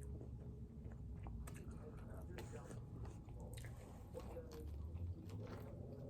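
Close-miked chewing and mouth sounds of someone eating seafood: soft wet smacks and scattered clicks.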